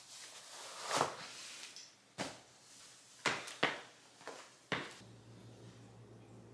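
Hoka running shoes knocking and stepping on a hardwood floor as they are put on and tried out: about six separate thuds over the first five seconds, the loudest about a second in. After that, only a steady low hum.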